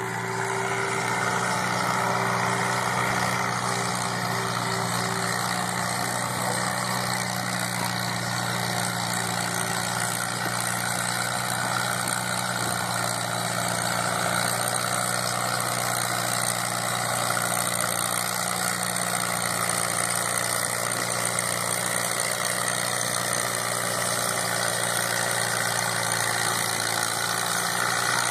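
A tractor engine running steadily at a constant speed, with no revving up or down.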